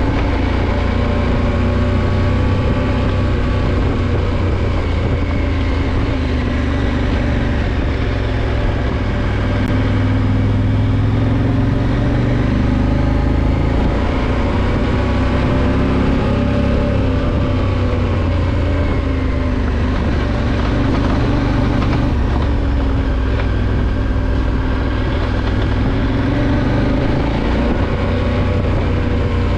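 Adventure motorcycle's engine running at moderate speed on a dirt track, its pitch rising and falling gently with the throttle, over a continuous rush of wind and tyre noise.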